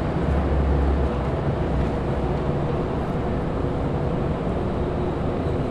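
Steady low engine rumble with a faint steady hum above it, a little louder in the first second.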